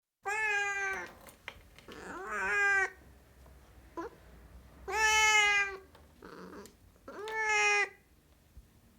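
Domestic cat meowing: four drawn-out meows about two seconds apart, each under a second long, with a short chirp between the second and third.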